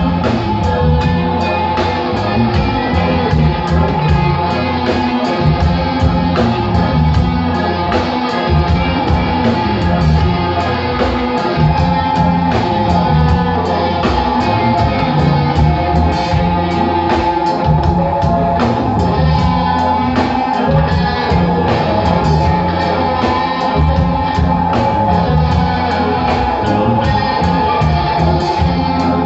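Live band playing loud, dense music with electric guitars and a steady drumbeat, heard from among the audience in the hall.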